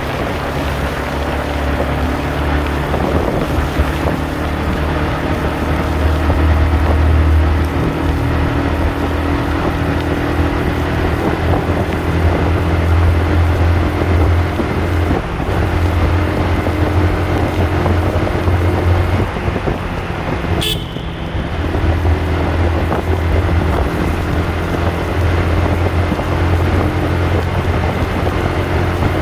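Yamaha R15 V2's single-cylinder engine running steadily at cruising speed, with wind and road noise, inside a road tunnel. A sharp click about two-thirds of the way in.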